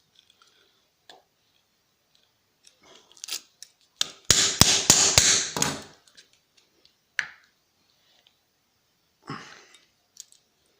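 Small metal tools working a laptop hard drive's screws: scattered light clicks, then about four seconds in a loud scraping burst of roughly two seconds with about four sharp metal strikes, followed later by a single click and a short scrape.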